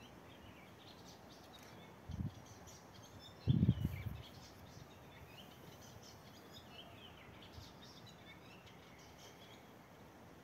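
Small birds chirping and twittering faintly in the background. Two brief low rumbles stand out, about two seconds in and again about three and a half seconds in.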